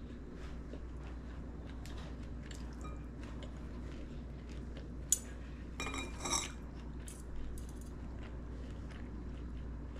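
A person eating in a pause between sentences: faint chewing over a low steady hum, with a sharp click about five seconds in and a short crunchy crackle about a second later.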